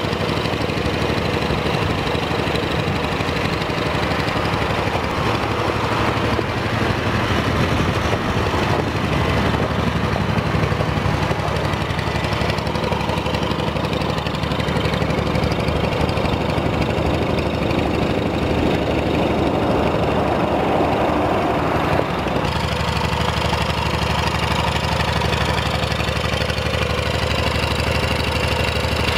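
Massey Ferguson 135 tractor's gasoline engine running at a low, steady speed, with an even rhythmic chug. The sound changes abruptly about 22 seconds in, then the engine runs on at the same even pace.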